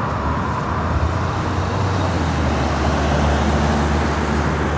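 Road traffic on a wide city avenue: a car driving past, steady tyre noise with a low engine hum.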